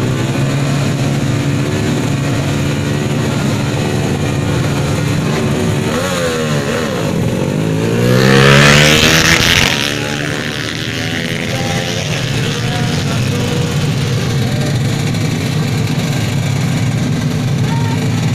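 Drag-race motorcycle engines running at the start line with a steady note. About eight seconds in, a bike launches and passes close by with a steeply rising engine scream, the loudest moment, before the steady running of the waiting bikes carries on.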